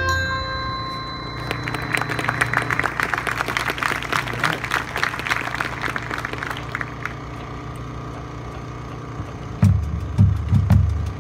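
Marching band's final held chord cuts off, then a crowd applauds for several seconds before dying away. Near the end, a bass drum starts striking a beat.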